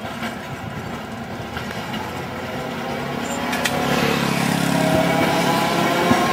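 Old-style Dalian electric tram running, its steady rumble and low hum getting louder over the last few seconds.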